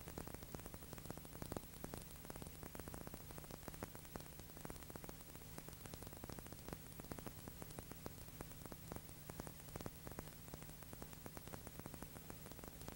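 Steady hiss and hum with dense, irregular crackling clicks: the noise of an old film or tape transfer. No gunfire or other sound from the scene stands out.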